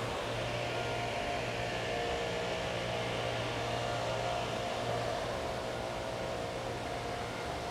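Leaf blowers running steadily, a continuous motor drone, over the rush of water spilling over a mill dam.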